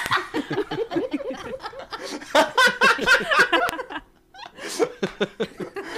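Human laughter mixed with voices, in short rapid bursts, pausing briefly about four seconds in.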